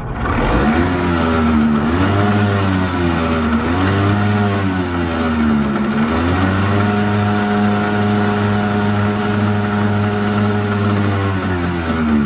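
Yamaha 90 outboard motor running and being revved up and down several times, then held at a steady higher speed for about five seconds before the revs drop back near the end.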